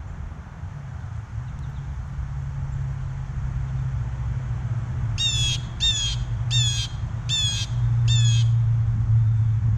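Blue jay giving five harsh, evenly spaced jeering calls in a row, each dropping slightly in pitch, about halfway through. A steady low rumble runs underneath and grows louder.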